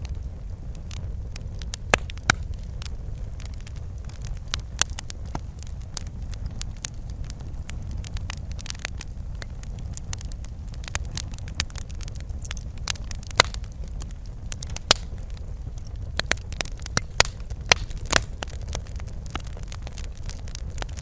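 Wood fire in a fireplace crackling, with irregular sharp pops and snaps over a low, steady rumble of burning.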